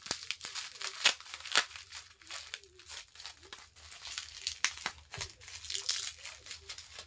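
Clear plastic wrapping crinkling and crackling as hands open and handle it, with scattered sharp crackles, the two loudest about a second and a second and a half in.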